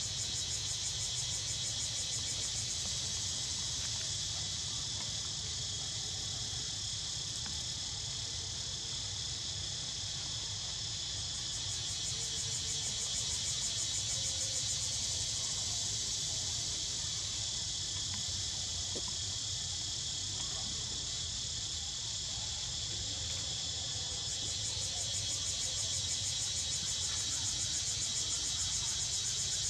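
A dense, high-pitched insect chorus trilling without a break, swelling louder in the middle and again near the end, over a low background rumble.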